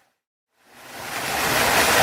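Waterfall rushing, a steady full-range noise, fades to complete silence at the start, stays silent for about half a second, then fades back in and holds steady.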